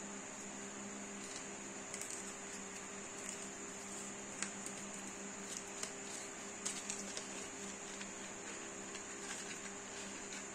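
Soft crinkles, taps and clicks of packaging being handled as a box of colour pencils is opened, with a few sharper clicks around the middle. Under it runs a steady low hum with a faint high whine.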